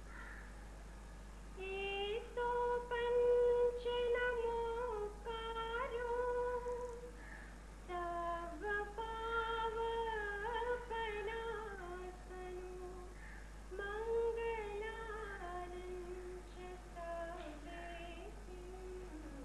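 A woman's voice singing a slow melody in three long phrases with sustained held notes, with no other instrument standing out. A steady low hum sits underneath.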